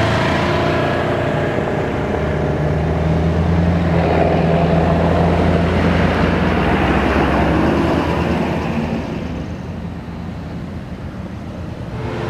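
Heavy-duty Ford pickup's engine running as the truck rolls slowly past: a steady low drone that fades about three-quarters of the way through.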